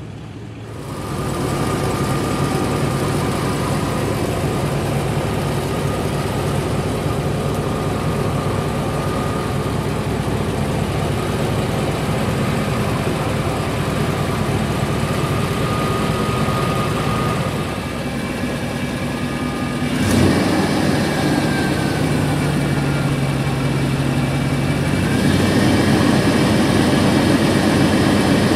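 A Chevy 5.7 L TBI V8 runs in drive with the truck up on jack stands, turning the driveline and the raised front wheels with four-wheel drive engaged. There is one sudden bump about two-thirds of the way through, and the sound grows louder near the end.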